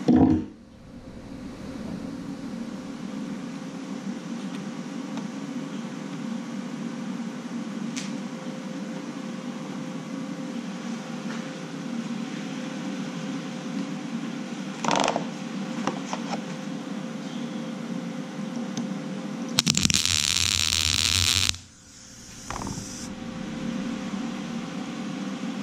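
A steady low fan hum runs throughout. A sharp knock comes at the very start and a shorter one about 15 seconds in. A loud harsh hiss lasting about two seconds comes near the end.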